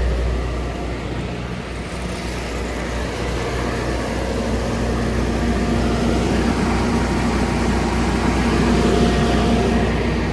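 A steady low mechanical drone from a running engine or machine, with a loud hiss over it that swells from about two seconds in.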